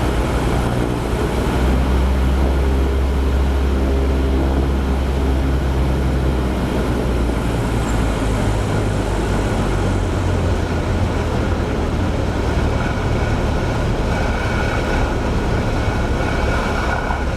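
Cessna 172's four-cylinder piston engine and propeller heard from inside the cabin, running at low power during the landing. It gives a steady low drone, and its pitch steps up somewhat about halfway through.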